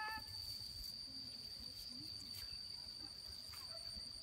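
An insect, cricket-like, chirring as one steady high-pitched whine, with faint crackles of dry twigs and brushwood being handled.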